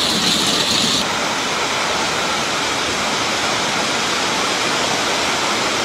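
Hail and heavy rain falling hard in a storm, a dense steady hiss; its tone changes about a second in.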